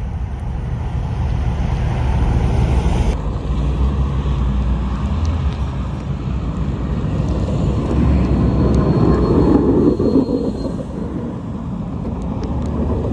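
Steady low rumble of a vehicle running, with a change in the sound about three seconds in where the footage cuts.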